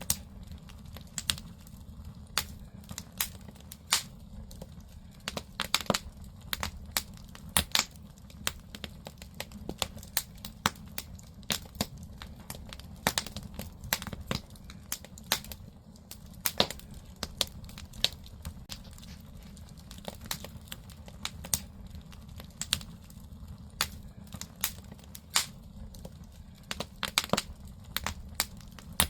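Firewood burning in a traditional Korean agungi firebox: irregular sharp pops and crackles, several a second at times, over a steady low rumble of the fire.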